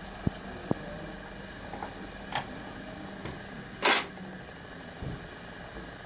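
A few sharp clicks and light handling knocks as hands work the switches and plastic casing of an aspirating smoke detector and its power supply while it is being powered down. The loudest click comes about four seconds in.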